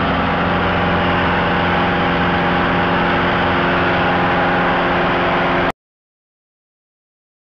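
Light airplane's engine and propeller droning steadily, heard from inside the cabin in flight. It cuts off abruptly about five and a half seconds in, leaving silence.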